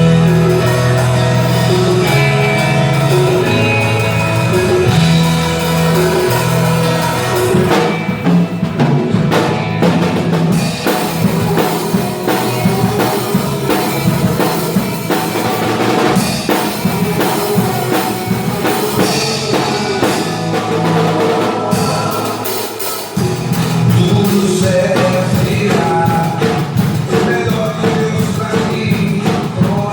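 A band playing a Christian gospel song on drum kit and other instruments, with a singing voice. The low bass notes thin out about a quarter of the way in and come back strongly past the three-quarter mark.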